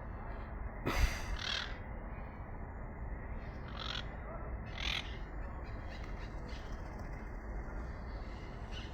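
Parrots giving harsh, short squawks, a few separate calls with the loudest about a second in, over a steady background hiss.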